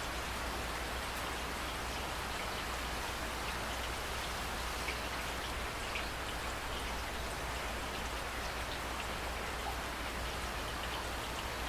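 Steady rain falling, an even hiss with individual drops ticking over it.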